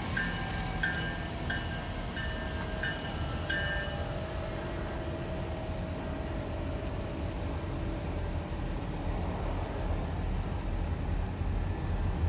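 Ontario Northland diesel locomotive approaching with a steady deep engine rumble that grows louder near the end. For the first four seconds a bell dings repeatedly, about twice a second, then stops.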